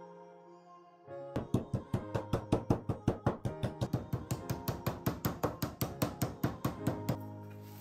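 Wooden meat mallet lightly pounding herring fillets through cling film on a wooden chopping board: a fast, even run of dull knocks, about six a second, starting about a second in and stopping shortly before the end, over background music.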